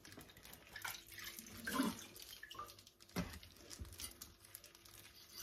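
Water splashing and dripping as raw pork ribs are handled and lifted out of a sink full of water, with a knock about three seconds in as the meat is set down on a wooden cutting board.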